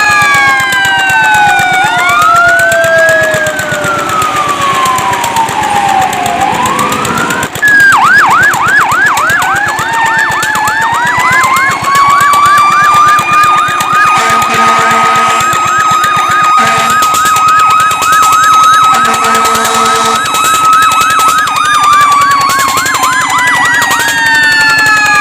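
Fire truck sirens sounding together. First come long wails falling in pitch; then, about a third of the way in, the sound cuts abruptly to a fast yelp of three or four sweeps a second over a wail that rises and holds one high tone. A horn blasts twice in the middle, each blast lasting a second or two.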